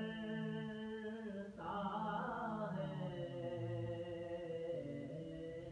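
A man's unaccompanied voice chanting soz, the Urdu elegy of mourning for Imam Hussain, in long held notes; a brief break about a second and a half in, then the voice slides down in pitch into further sustained notes.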